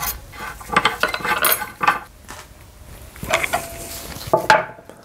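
Drill bit being changed in a steel collet chuck: a spanner working the collet nut, with irregular metallic clicks, clinks and scrapes, and a short ringing clink about three and a half seconds in.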